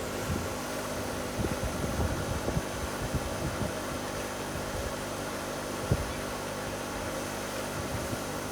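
A steady mechanical hum with a hiss over it, like a running fan or motor, broken by a few soft low thumps, one more distinct about six seconds in.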